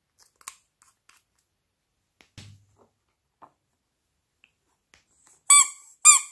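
Plastic mouse squeeze toy squeaking twice near the end, two loud high squeaks about half a second apart. Before them come a few faint clicks and a soft knock from handling.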